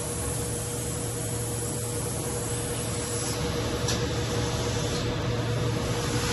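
Steady hum and hiss of machinery in a robotic CNC machining cell, with a thin steady tone above the hum. A faint click about four seconds in.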